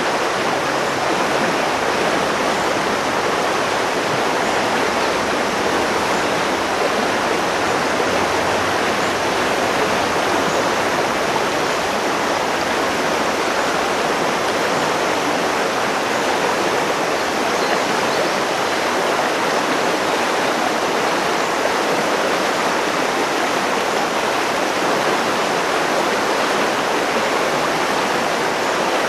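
Steady rushing of a mountain river flowing through a rocky gorge.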